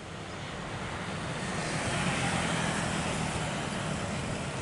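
Jet engines of a Boeing 737 rolling along the runway: a steady low rumble with a broad hiss, growing louder over the first two seconds.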